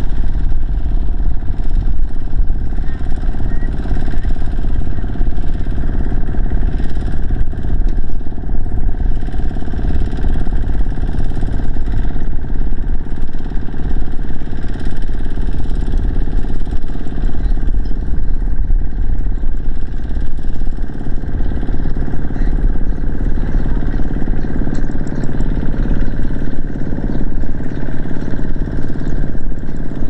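Two-wheel walking tractor's single-cylinder diesel engine running steadily under load while it pulls its cart through mud, with a fast, even beat of firing strokes.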